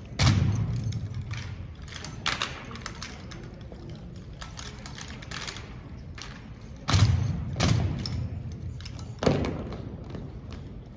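Sharp knocks and thuds from an armed rifle drill routine, coming at irregular intervals and echoing in a large hall. The loudest strikes are about seven and nine seconds in.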